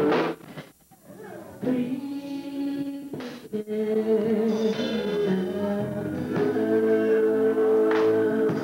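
Gospel vocal group singing, a male lead voice over held harmony notes, with a short break in the singing about a second in.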